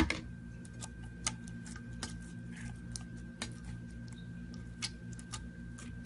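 Slime being squeezed and poked, giving irregular small clicks and pops, with one loud pop right at the start, over a steady low hum.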